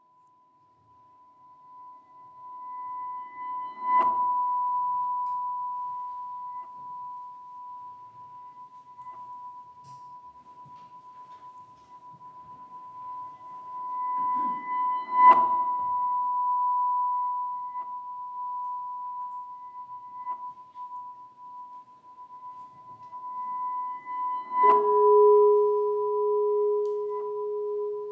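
Music for solo percussion and electronics: a steady, pure high tone swells and fades, broken by three ringing mallet strikes on keyboard percussion about ten seconds apart. With the third strike, a lower held tone enters beneath the high one.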